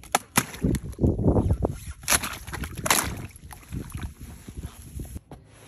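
A rubber boot stomping on a frozen puddle, cracking and crunching its thin skin of ice. There are several sharp cracks, with duller stomps and crunching between them.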